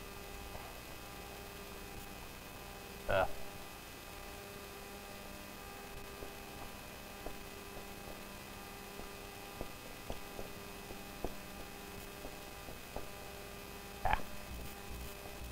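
Steady electrical mains hum, with faint scattered taps of a marker writing on a whiteboard. Two brief louder sounds come about three seconds in and near the end.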